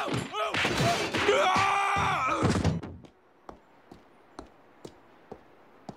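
Cartoon brawl sound effects: a dense jumble of crashes, thumps and pained yells, with the bang of a door, lasting a little under three seconds. Then a low hush with a handful of soft footsteps, about two a second.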